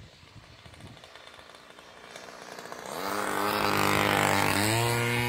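Two-stroke 33cc gas engine of an Ultra Stik RC airplane, growing louder as the plane comes in on a low pass, loudest as it flies by, with the engine note stepping up in pitch about four and a half seconds in.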